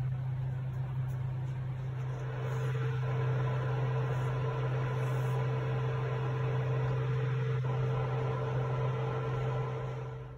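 Induction cooktop humming steadily with its cooling fan running, under a hiss from a pan of water heating noodles. The sound cuts off suddenly near the end.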